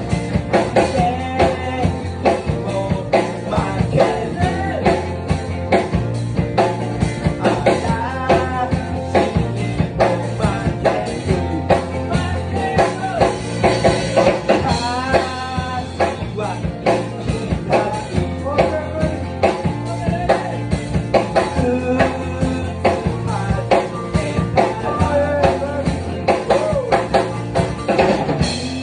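Rock band playing live: drum kit keeping a steady beat under electric guitar and bass, with a singer's voice over the top.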